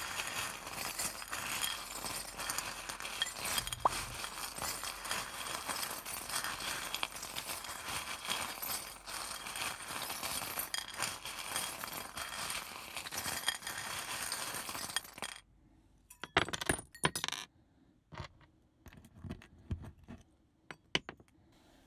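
Charm-casting charms, a handful of small trinkets, shaken together and jingling in a continuous clatter for about fifteen seconds before they stop. A few separate clicks and taps follow near the end.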